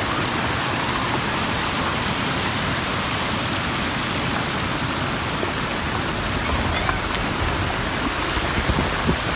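Muddy floodwater rushing in a steady torrent over a washed-out road, a continuous churning roar of runoff after torrential rain.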